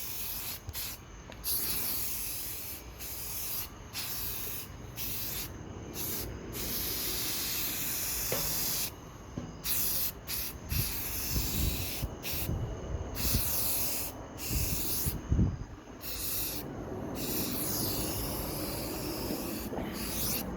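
Aerosol can of gray spray primer hissing in repeated bursts, broken by many short pauses as the nozzle is pressed and released.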